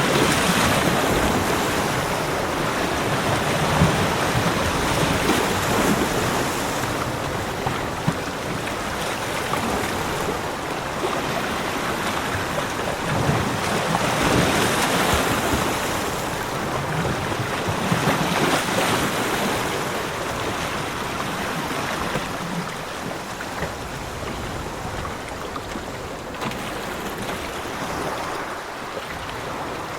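Ocean surf washing onto a beach: a continuous rushing noise that swells in waves every few seconds and eases off somewhat toward the end.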